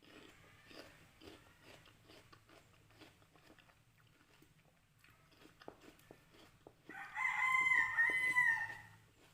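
Crisp water apple being bitten and chewed with repeated small crunches, then a rooster crows once, loudly, for about two seconds near the end.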